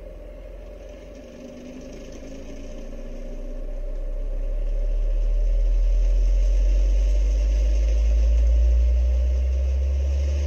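Homemade plywood sixth-order bandpass subwoofer playing a low bass test sweep: a deep hum that grows much louder over the first half and then holds.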